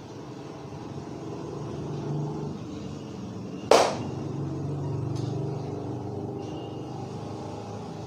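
Road traffic rumbling past, swelling twice, with one sharp loud crack about halfway through.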